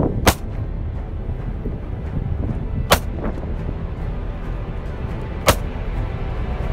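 Three single 9 mm handgun shots, about two and a half seconds apart, with music underneath.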